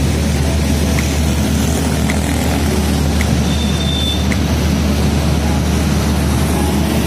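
Road traffic: motorcycles and cars passing on a street, over a steady low engine drone.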